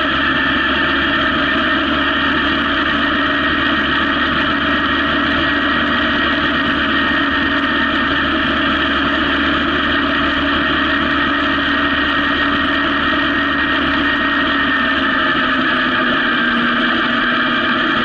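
Honda CB750 inline-four motorcycle engine running steadily at cruising speed, with its note dropping slightly near the end.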